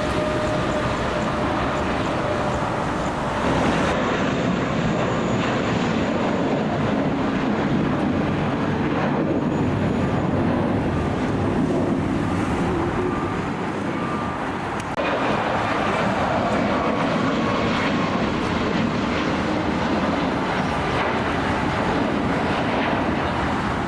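Jet airliner engines running with a loud, steady rush of noise and faint turbine whine tones.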